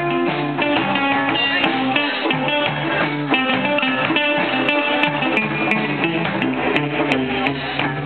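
Guitar-led band music with strummed chords, playing steadily with no break.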